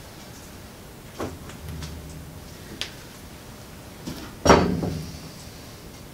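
Manual sheet metal brake being worked through a bend: a few clicks and a brief low hum, then a loud metallic clang with a short ring about four and a half seconds in as the bending leaf drops back.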